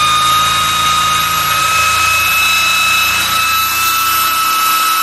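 Alternator test bench driving a freshly rebuilt 60-amp alternator at speed for a charging test: a loud, steady high-pitched whine.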